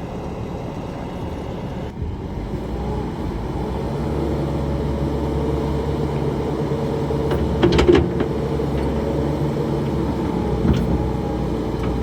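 Bobcat T770 tracked skid steer's diesel engine running, coming up in speed between about two and four seconds in and then holding steady, with a few sharp metallic clanks about eight seconds in.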